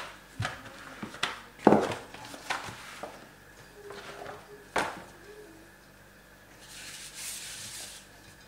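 Dough being handled on a cloth-covered kitchen counter: a few sharp knocks and taps as the wooden rolling pin and the rolled sheet of dough are lifted and set down, then a hand rubbing flour across the cloth for about a second near the end.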